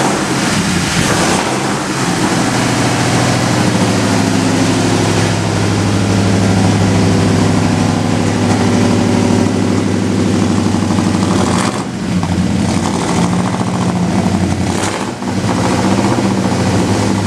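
A vehicle engine running steadily at a fast idle, dipping briefly twice in the last third. It is running rough after sitting a long time, 'not happy'.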